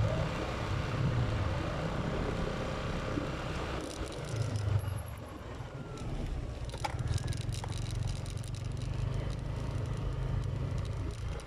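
Motorcycle being ridden along a road: a steady low engine hum under the rush of wind and road noise.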